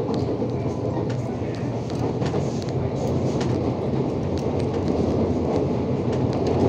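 CPTM commuter train car running along the rails, heard from inside: a steady rumble of wheels and running gear with faint, irregular clicks and ticks over it.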